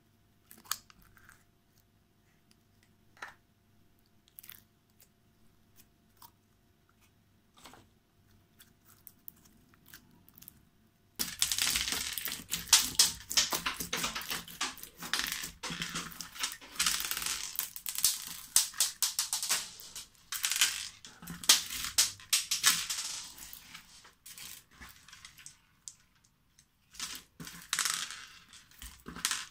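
Slime packed with sequins and beads squeezed and stretched by hand: a dense crackling and crinkling of the sequins that starts suddenly about a third of the way in and carries on, with a quieter lull near the end. Before that, only a few sparse small clicks come from slime worked inside a plastic egg.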